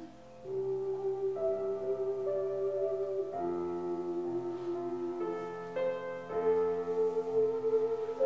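Ocarina ensemble playing a slow hymn tune in held notes, several parts sounding together in harmony, after a short breath pause right at the start.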